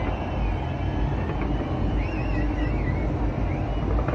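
Distant fireworks display: a dense, continuous low rumble of bursting shells, with a few sharp cracks and faint high wavering whistles over it.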